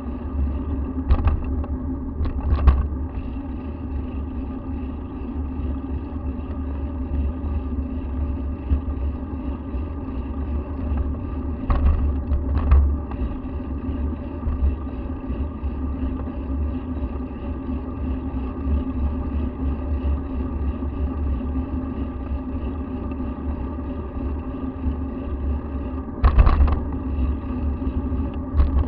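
Steady low rumble of road and wind noise from an action camera moving along a street, with a faint drone over it. Brief sharp knocks from bumps come a couple of times early, twice around twelve seconds in, and once more near the end.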